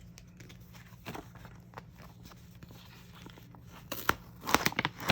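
Handling of mail packaging and photo card sleeves: scattered light rustles and taps, with a louder burst of crinkling and crackling about four seconds in.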